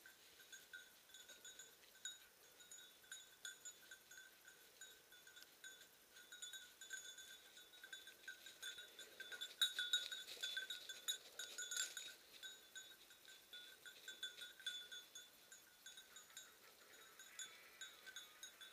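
A bell on a hunting dog's collar jingling irregularly as the dog moves through dry bracken and undergrowth. It is loudest, with brushy rustling, about ten seconds in as the dog passes close.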